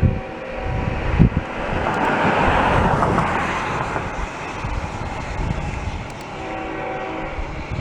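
A road vehicle passing by: a hiss of tyre and engine noise swells to a peak about three seconds in and fades. Wind buffets the microphone in low thumps throughout.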